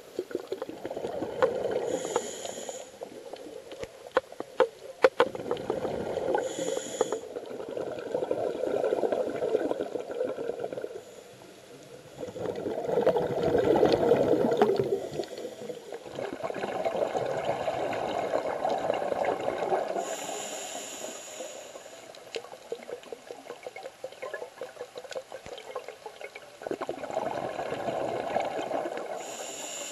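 Scuba diver breathing through a regulator underwater: short high hisses on each inhale alternating with longer swells of rushing exhaled bubbles, over several breath cycles.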